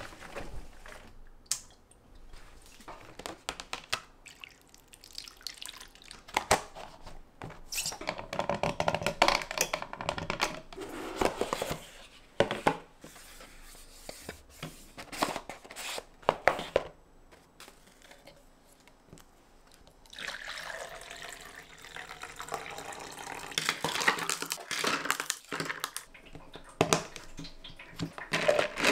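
Water running from a kitchen tap into a sink, steady for the last several seconds, with scattered clinks and knocks of kitchenware before it.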